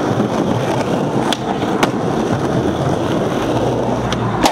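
Skateboard wheels rolling steadily over concrete pavement, with a few sharp clacks of the board, the loudest near the end.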